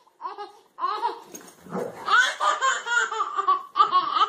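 High-pitched laughter in repeated bursts, starting after a brief pause.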